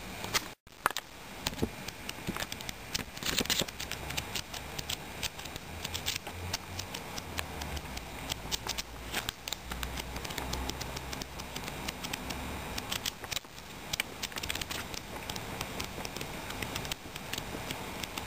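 Paper book pages being turned and flipped by hand: a steady run of rustles and crisp flicks, with a brief cut-out about half a second in.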